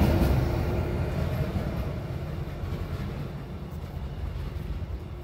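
Stadler GTW 646/946 diesel multiple unit moving away on the rails, its low engine and running rumble fading steadily as it slows for the station.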